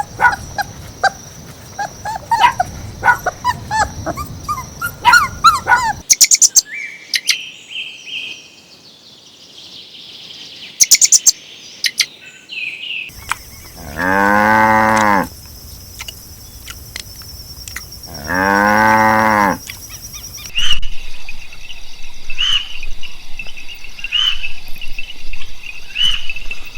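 A cow mooing twice, each moo a long call of over a second that rises and falls, with short high chirps before and between the moos.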